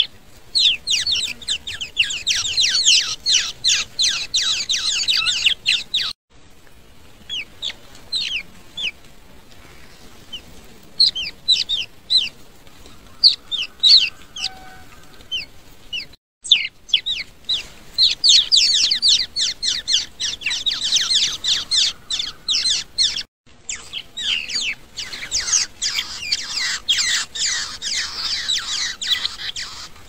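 Baby birds chirping: rapid, high-pitched chirps packed many to a second in long bursts, with sparser chirps between the bursts, breaking off abruptly a few times.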